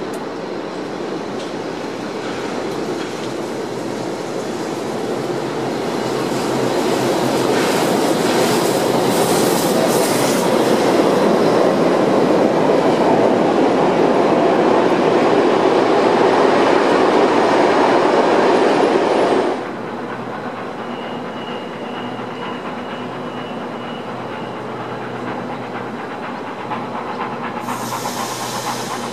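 Double-deck electric suburban train (Sydney Tangara set) running past close by, its wheels clattering on the rails, building up and then cutting off suddenly about two-thirds of the way through, leaving a lower steady rail-yard background with a short hiss near the end.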